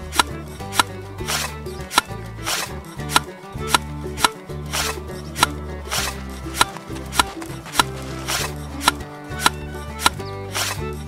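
Background music with a steady beat: crisp percussive clicks about every 0.6 seconds over sustained low chords.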